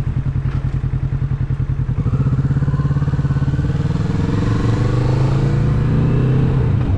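Motorcycle engine running with a pulsing beat at low revs, then about two seconds in it opens up and the revs climb steadily as the bike accelerates away, the pitch falling back near the end.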